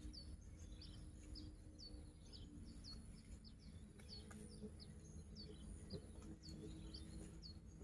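Faint bird calls: short high chirps, each sliding quickly downward, repeated about two to three times a second over a low steady hum.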